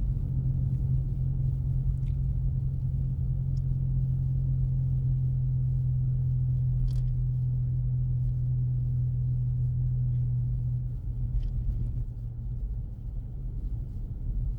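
Inside the cabin of a 2024 Ford Mustang EcoBoost driving on snow: a steady low engine drone with rumbling road noise, easing off about eleven seconds in.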